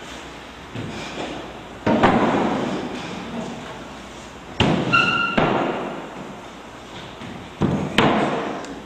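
A slow series of heavy thuds, about one every three seconds, each dying away slowly; the one near the middle carries a brief ringing tone.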